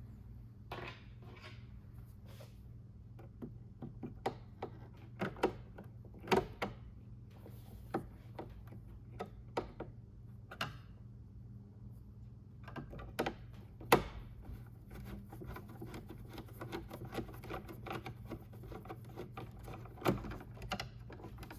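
Scattered clicks, taps and knocks of a Torx screwdriver and plastic fairing trim pieces being worked loose and pulled off a BMW K1600 motorcycle, with one sharper knock about fourteen seconds in. A steady low hum runs underneath.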